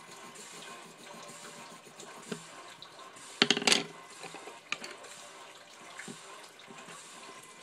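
A colored pencil set down on a wooden tabletop, a short clatter about three and a half seconds in, over a steady background hiss. A few light taps from fingers and paper on the table before and after.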